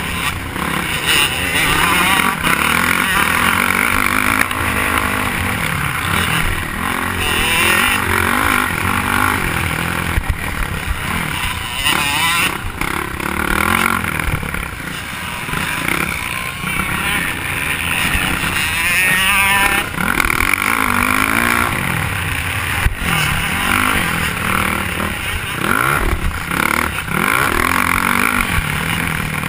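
Motocross bike engine revving up and down repeatedly as it races over a dirt track, heard from on board the bike, with wind noise.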